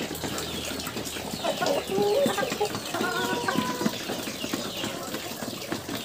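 Chickens clucking a few times in their pen, over a patter of small clicks and rustling.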